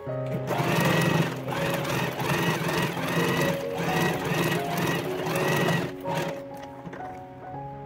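Domestic electric sewing machine stitching a seam through lining fabric, running for about five seconds with a pulsing rhythm, then stopping.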